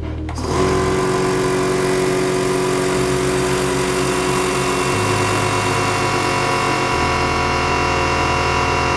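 Air compressor starting up about half a second in and running steadily under a stepping music bass line.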